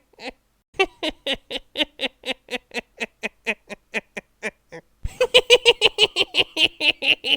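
A person's evil laugh: rapid, staccato 'ha-ha-ha' syllables at about four to five a second. It breaks off briefly near the start and again about five seconds in, then comes back louder.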